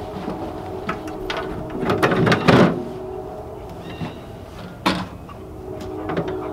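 John Deere 410C turbo-diesel backhoe being started after a loose battery cable was re-crimped: the starter clicks on and the engine turns over, with metal clunks from the cab. The loudest part comes about two seconds in.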